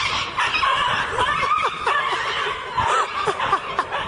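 People laughing in quick, short snickers.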